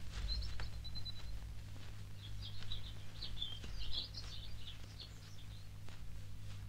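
Small birds chirping in quick, short, high calls, busiest in the middle, over scattered crunches of footsteps on dry leaves and twigs and a steady low hum.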